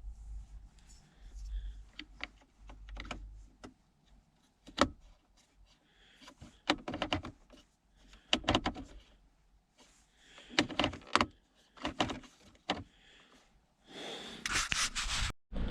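Scattered hard plastic clicks and knocks in short clusters with quiet gaps, as a new climate-control mode knob is fitted and worked on a Nissan X-Trail dashboard.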